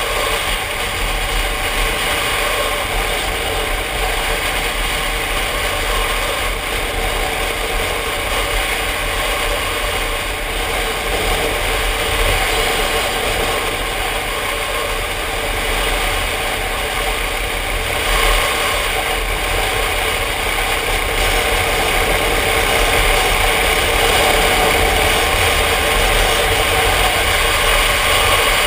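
Yamaha Ténéré motorcycle engine running steadily while cruising at road speed, under wind and road noise on the camera. It grows a little louder over the last several seconds.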